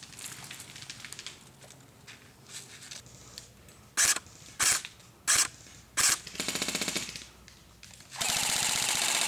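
Airsoft electric rifles firing: four single shots about two-thirds of a second apart from the scoped M14 replica, then two full-auto bursts with a fast rattle of the gearbox cycling, the second and longer one near the end.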